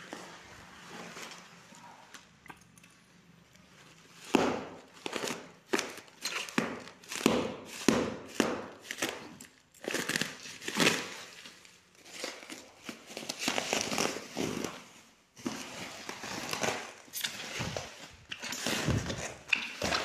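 Clear plastic wrapping on a parcel being crinkled and brown packing tape being pulled and torn off by hand. The rustles and rips come in an irregular run that starts about four seconds in, after a quieter stretch.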